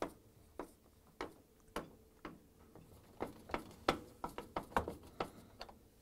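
A string of faint, sharp clicks from a 1/4-inch nut driver working the screws that hold a refrigerator's freezer drawer door to its metal slide rails. The clicks come about two a second at first and faster in the second half.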